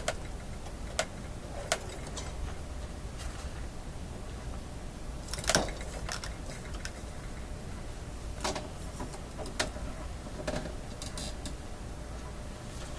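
Scattered light clicks and knocks from handling tools and parts on a tube-radio chassis, the loudest about five and a half seconds in, over a steady low hum.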